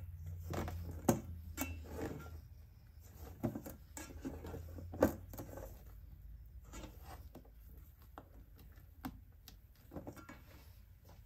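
Silicone spatula stirring thin cake batter in a stainless steel bowl: soft scraping and sloshing with irregular light clicks and taps of the spatula against the bowl, the sharpest about five seconds in.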